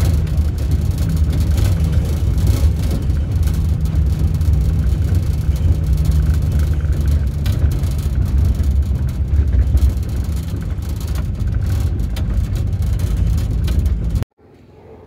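VW Kombi van driving, a steady low engine and road rumble that stops abruptly about a second before the end.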